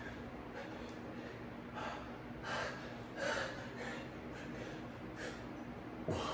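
A man breathing hard from exertion during push-ups: several short, forceful breaths at uneven intervals. A faint steady hum sits underneath.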